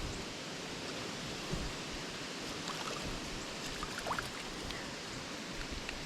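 Creek water running steadily, with a brief faint rising squeak about four seconds in.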